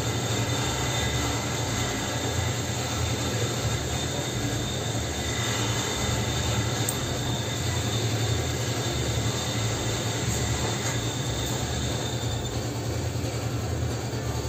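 A machine running steadily, a low hum with a faint high whine over it.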